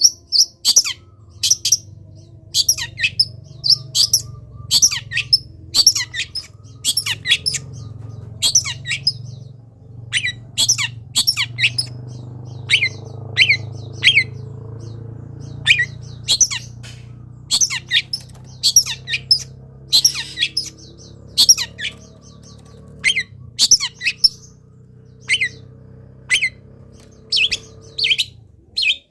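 Long-tailed shrike singing nonstop in full song: a rapid string of loud, sharp, high-pitched call notes, about one or two a second, made of the varied borrowed phrases (isian) that this mimic packs into its song.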